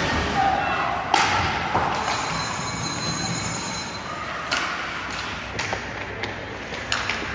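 Ice hockey play in an arena rink: sharp knocks and clacks of sticks and puck against the ice and boards, the loudest about a second in and several more near the end, over a steady hum of the rink.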